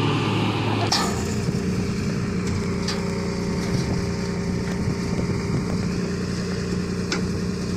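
Heavy diesel machinery running steadily. A change of tone about a second in gives way to a tipper truck's engine holding a steady note while its raised body dumps its load.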